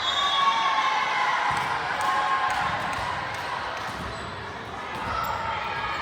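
Echoing din of an indoor volleyball gym: voices of players and spectators mixing in the hall, with a few sharp thuds of the volleyball.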